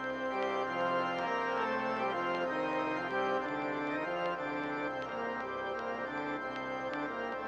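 Instrumental band music led by an organ, which holds sustained chords while a line of notes moves beneath and through them, with light ticks over the top.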